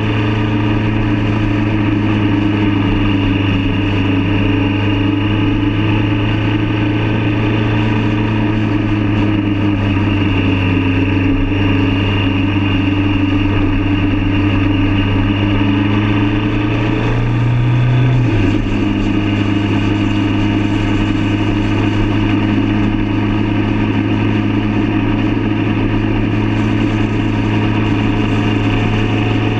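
Motorcycle engine running steadily at cruising speed, recorded on the bike itself. About 17 seconds in, its pitch rises briefly and then drops back a second later.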